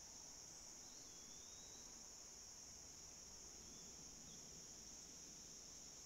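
Faint, steady, high-pitched chorus of insects calling without a break. A single brief bird chirp comes about a second in.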